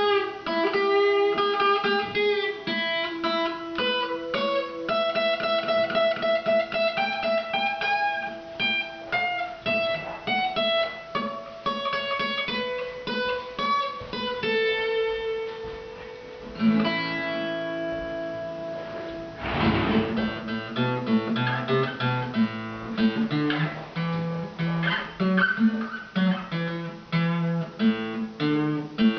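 Acoustic guitar playing: single picked notes at first, then strummed chords from about two-thirds of the way in.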